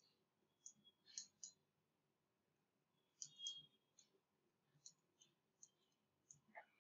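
Faint, irregular clicking of a stylus pen tip tapping and dragging on a graphics tablet while handwriting, in small clusters of quick clicks.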